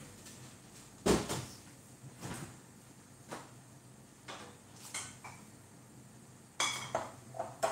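A kitchen cupboard door opened and things on its shelves knocked and moved about. It comes as a string of separate knocks, the loudest about a second in, with a cluster of knocks and clinks near the end.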